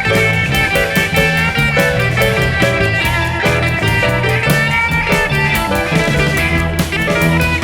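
Background music: an upbeat guitar-led track with bass and a steady beat.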